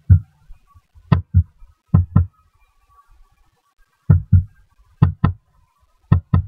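Computer mouse clicks picked up close to the microphone: six pairs, each a press and release about a fifth of a second apart, every click a sharp tap with a dull low thump.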